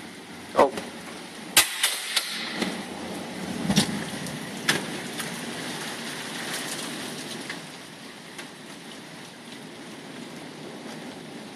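Rain falling steadily on pavement and parked cars, a noise hiss with several sharp taps in the first five seconds. It grows a little louder in the middle and then eases slightly after about seven seconds.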